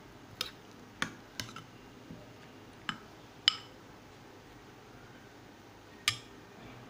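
Stainless steel spoon stirring a thick mash of boiled dried peas in a bowl, clinking sharply against the bowl's side about six times at uneven intervals.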